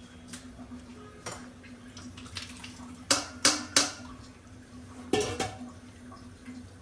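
Stainless steel bowls and a sieve clinking and knocking against each other while the starch water for laphing is strained. Three quick knocks come about three seconds in, and another pair a little after five seconds.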